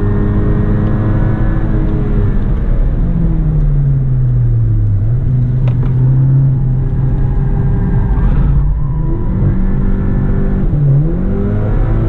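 Skoda Octavia RS245's 2.0 TSI turbocharged four-cylinder heard from inside the cabin at track speed, over steady road and tyre noise. The engine note drops over a couple of seconds, holds, then climbs again from about nine seconds in, with a brief dip in pitch near eleven seconds.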